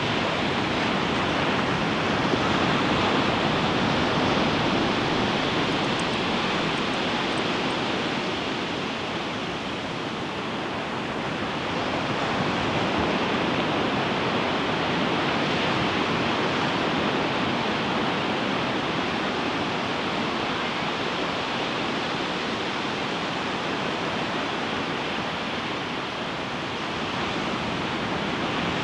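Ocean surf breaking on the beach: a steady wash of waves that swells and eases slowly, dipping about ten seconds in and again near the end.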